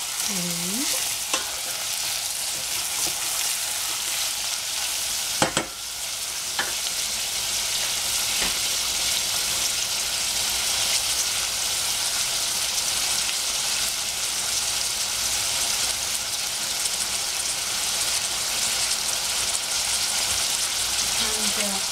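Carrots and sliced red onion sizzling in oil in a stainless steel saucepan, a steady hiss. There is one sharp knock about five and a half seconds in, with a few faint clicks around it.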